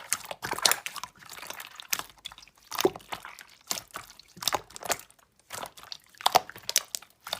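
Slime being squished and worked by hand, giving irregular sticky clicks, crackles and pops several times a second.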